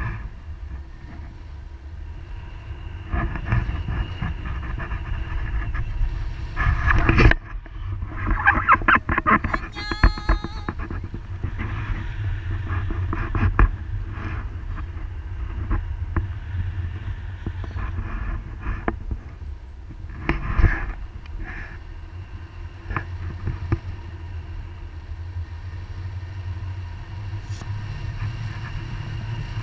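Wind rushing over the microphone of a camera on a tandem paraglider in flight, a steady low rumble. A few short, louder bursts break in, about seven to ten seconds in and again near twenty seconds.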